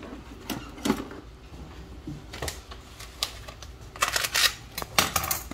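Kitchen utensils clicking and clinking as they are handled, then a denser second of crinkling near the end as a knife cuts into the plastic wrapping around a tri-tip roast.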